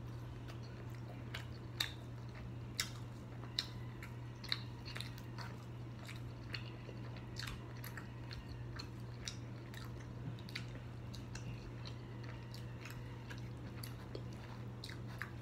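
A person biting and chewing sauced hot chicken wings close to the microphone: irregular sharp clicks and crunches, the loudest in the first few seconds, over a steady low hum.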